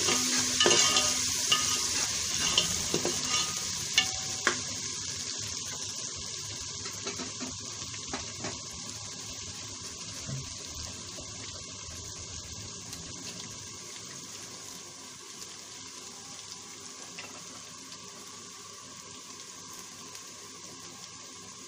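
Onions and garlic paste sizzling in hot oil in a metal pot, with a spoon scraping and clicking against the pot in the first few seconds. The sizzle gradually dies down.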